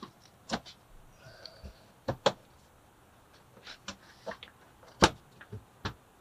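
Interlocking vinyl flooring planks being slid across a plywood subfloor and pressed into place, giving a scattered series of sharp clicks and knocks, the loudest about five seconds in.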